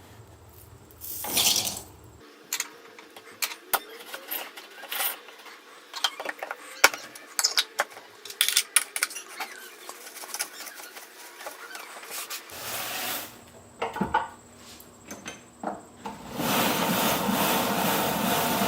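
Small clicks and taps of metal tools and a silver spoon being handled during restoration work. There is a short scraping burst about a second in, and a steady harsh noise starts near the end.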